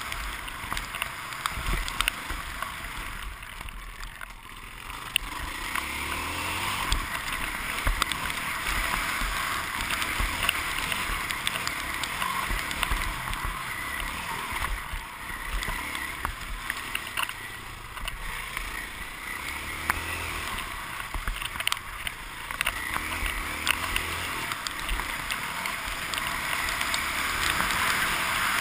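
Motocross bike engine running hard as the bike races over a dirt track, heard muffled through a helmet camera's housing with wind rushing over it. The sound eases briefly about four seconds in, then builds again, and sharp knocks from the bike over the bumpy track are scattered throughout.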